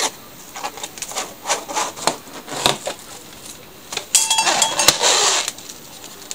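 Plastic cling film crinkling and crackling as it is spread out and smoothed flat by hand on a countertop: scattered light crackles, then a louder stretch of crinkling from about four to five and a half seconds in.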